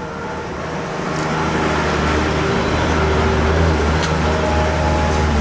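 Motor vehicle engine running close by, a low rumble that grows louder over the first couple of seconds and then holds steady, with a faint click about four seconds in.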